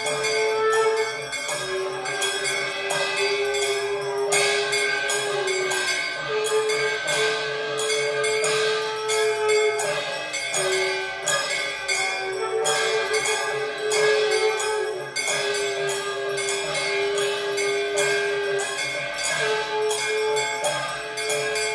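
Large hanging temple bell rung rapidly and without pause during aarti, its strokes ringing over one another. Behind it runs music whose melody swings between two long held notes.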